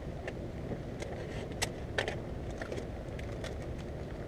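Handling noises of things being set out and hung inside a tent: a few sharp clicks and light crinkles, the loudest two about 1.6 and 2 seconds in, over a steady low rumble.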